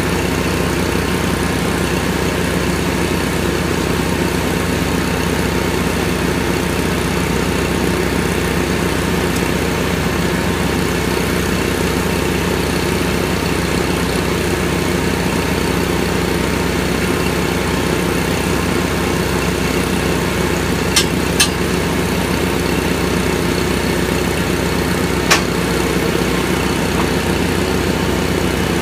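Engine of the machine screwing a helical pier into the ground, running steadily at an even speed. Two sharp clicks close together about two-thirds of the way through, and one more a few seconds later.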